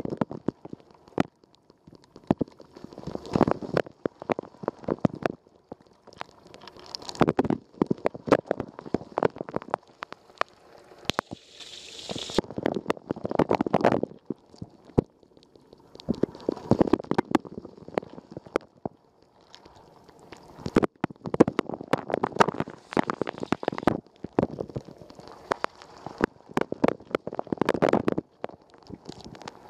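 Wash water spraying and splashing inside a running Rosenlew dishwasher, heard from within the machine: the spray swells and fades every three to four seconds, with many sharp droplet hits throughout.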